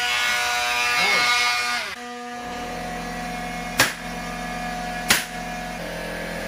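A cordless drill runs for about two seconds. After that, over a steady hum, a pneumatic framing nailer fires twice, a little over a second apart, driving nails into the plywood subfloor.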